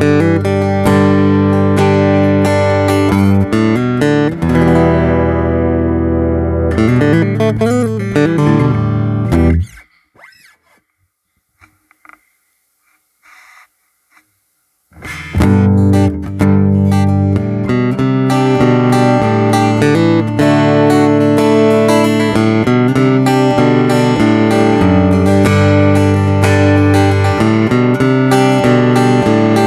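Stratocaster-bodied flat guitar played through an LR Baggs M1 passive body-sensing pickup, recorded direct so it sounds like a miked acoustic guitar. Chords and notes ring on, the playing stops about ten seconds in, and after about five seconds of near silence it resumes with quick plucked notes.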